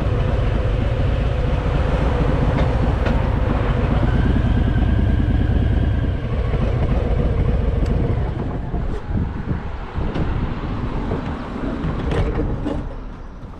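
Harley-Davidson Fat Boy's V-twin engine running as the motorcycle rides along. The engine rumble is steady at first, then drops off and turns uneven from about eight seconds in as the bike slows.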